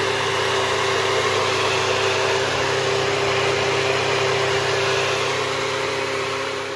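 NutriBullet personal blender running at full speed, blending frozen fruit and melon water into a thick smoothie: a loud, steady motor whir at one constant pitch, starting to die away at the very end.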